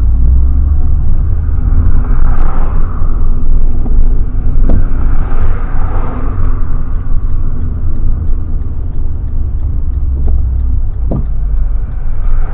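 Loud low rumble with a faint steady hum above it, and a couple of short knocks in the middle and near the end.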